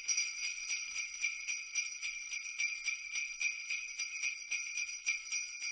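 Jingle bells shaken in a steady rhythm, about four to five shakes a second, with a bright, high jingle.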